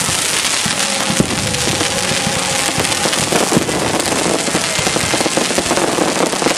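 Fireworks display going off, a dense rapid run of pops and crackles from many shells bursting in quick succession, with faint music underneath.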